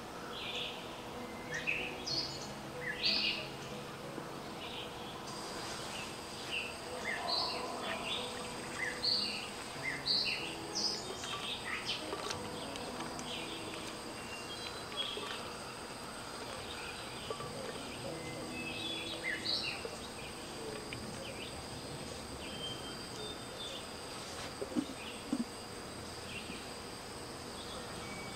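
Rural outdoor ambience: birds chirping in many short, scattered calls over a constant insect drone. A steady high-pitched insect buzz comes in about five seconds in and holds.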